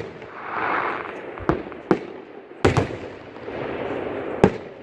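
Aerial fireworks shells bursting: about five sharp bangs, two of them in quick succession near the middle, over a steady background rush of noise.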